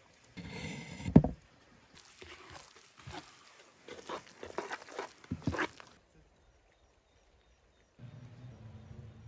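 Wooden spoon stirring a wet minced carp mixture in a clay bowl: irregular squelches and clicks, with one loud thump about a second in. The stirring stops about six seconds in, and a low steady hum starts near the end.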